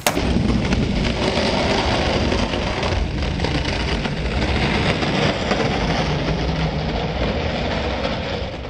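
Skateboard wheels rolling over concrete, a steady rumble that fades out near the end.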